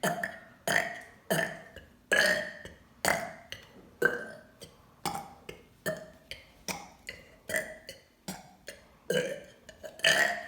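A person burping over and over, in a quick string of short burps about two a second.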